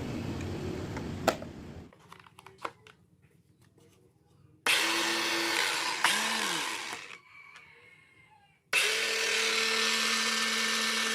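A converted motorcycle starter motor driving a homemade onion slicer, switched on twice from a cordless-drill battery. The first run lasts about two seconds and winds down with falling pitch. About four seconds later it starts again and runs at a steady pitch. A low rumble fades out over the first two seconds.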